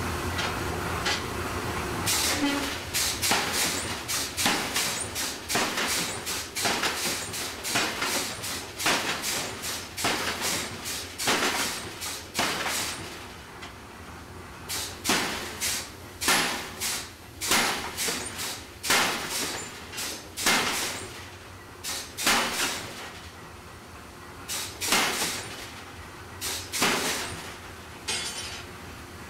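Forging hammer blows on a red-hot steel bar: a steady run of sharp metal impacts, about one and a half a second, pausing briefly twice as the bar is shifted on the anvil.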